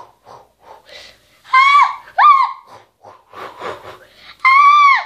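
A child's voice making high-pitched squealing cries, three short ones, with breathy gasps and huffs between them: vocal sound effects in a toy play-act.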